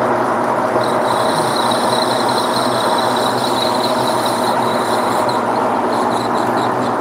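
Metal lathe running with its chuck spinning as the tool cuts a small metal part, a steady machine hum with a thin high whine from the cut starting about a second in and fading out near the end.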